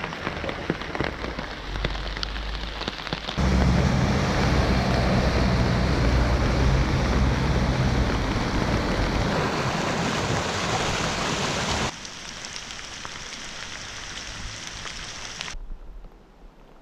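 Floodwater rushing down a swollen stream in spate, a steady noisy wash. It gets suddenly louder about three and a half seconds in, then drops back in two steps near the end.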